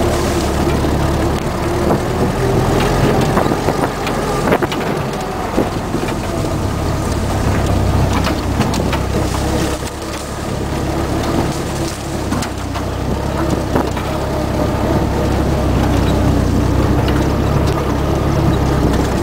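WWII jeep's four-cylinder flathead engine running steadily while driving off-road, with scattered clunks and rattles. The engine eases off briefly about halfway through, then picks back up.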